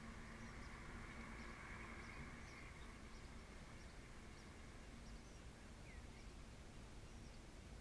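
Faint outdoor ambience close to silence: a quiet background hiss with a weak low hum and short, high chirps here and there.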